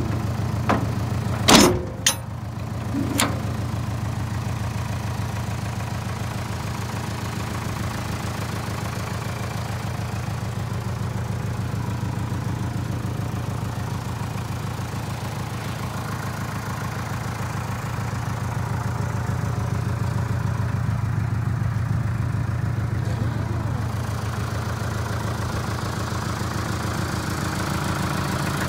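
Mitsubishi Canter light truck's engine idling steadily. A few sharp knocks in the first few seconds.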